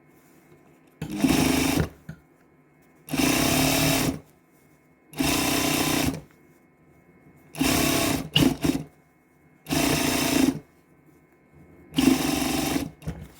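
Electric sewing machine running in six short bursts of about a second each, stitching a replacement zipper onto a jacket.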